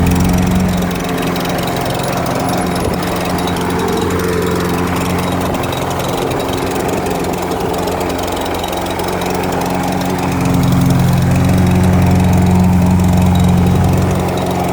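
Troy-Bilt 550EX walk-behind lawn mower's small single-cylinder petrol engine running steadily while mowing, loud, swelling louder for about the first second and again from about ten to fourteen seconds in.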